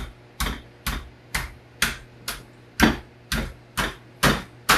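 Small hammer tapping lightly and steadily on the edge of a sheet-metal piece, about two taps a second, each with a short metallic ring. These are the first gentle bends that fold a quarter-inch edge of the metal over.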